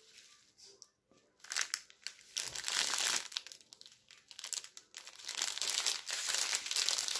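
Plastic packaging crinkling in irregular bursts: a strip of sealed plastic bags of diamond-painting drills being handled. It starts after about a second and a half of near quiet and is densest near the end.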